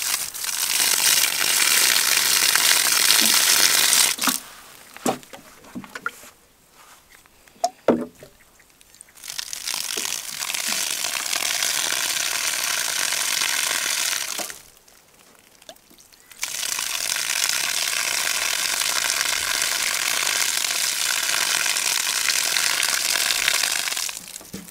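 Water from a garden hose running over a 3D-printed Coanda screen tile, passing through it and splashing down onto grass, in three spells of several seconds with short quieter breaks between them.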